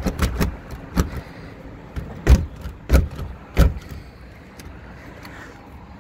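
A locked door rattling and clunking in its frame as its doorknob is turned and the door is pushed and pulled: a run of sharp knocks, the loudest three between about two and four seconds in, after which the handling stops.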